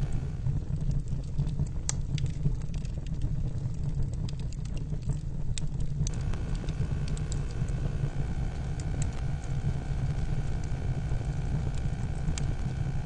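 Fire crackling, with scattered sharp pops and snaps over a steady low rumble; the crackle is like that of a log burning in a fireplace. A faint steady hum joins about six seconds in.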